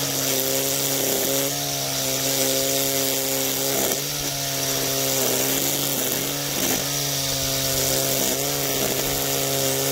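Battery-powered string trimmer running at a steady speed while edging grass, a motor hum with the line whirring through the grass. The pitch wavers briefly a few times as the line bites in.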